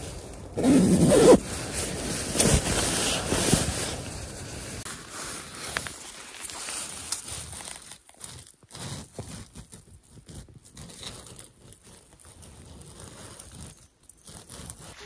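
Nylon sleeping-bag and tent fabric rustling and scraping as someone moves and handles it. It is loudest in a short burst about a second in, and fades to faint, scattered rustles after a few seconds.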